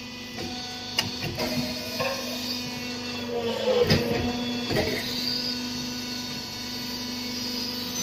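Cement-concrete interlocking brick-making machine running with a steady hum while its mould is filled and worked. Irregular knocks and scraping of concrete mix and metal mould parts play over the hum, loudest about four seconds in.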